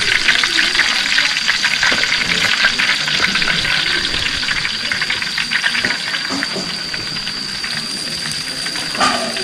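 Chicken wings deep-frying in a pan of hot fat: a steady sizzle with a dense crackle of small pops, easing slightly toward the end. A thin steady high tone runs beneath it.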